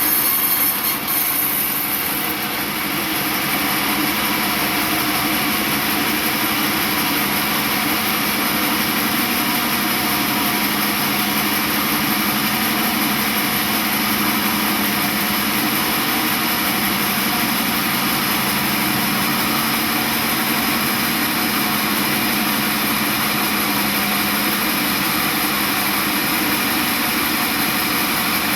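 Sawmill machinery running steadily: the motor-driven log saw, with an even hum and hiss. A brighter high hiss fades out over the first two seconds.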